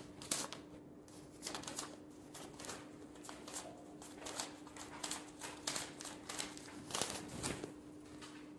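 Paper banknotes being handled in the hand: an irregular run of crisp snaps and rustles as the bills are fanned out and flicked.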